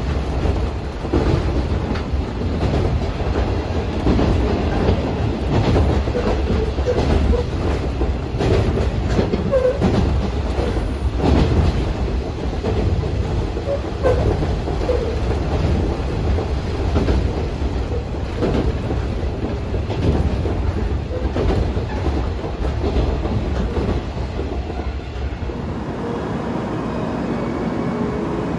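Train running on the rails: a steady rumble with frequent clacks from the track, settling into a smoother, slightly quieter hum near the end.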